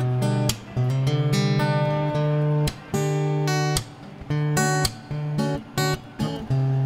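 Background music of guitar strumming chords, each chord struck sharply and left to ring.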